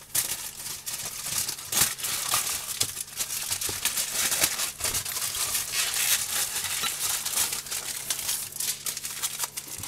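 Aluminium foil being crinkled and folded by hand to wrap a tortilla, a continuous run of sharp crackling crinkles.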